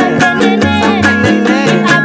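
A small acoustic busker band playing: ukuleles strummed over a steady beat on a hand drum made from plastic pipes, with voices singing the melody.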